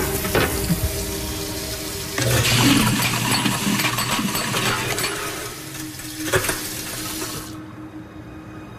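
Water running hard from a tap into a basin, a steady rushing hiss that grows louder about two seconds in and cuts off near the end.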